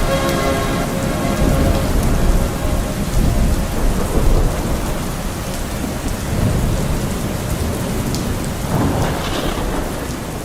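Rain-and-thunder sound effect: steady heavy rainfall with several low rumbles of thunder, slowly getting quieter near the end.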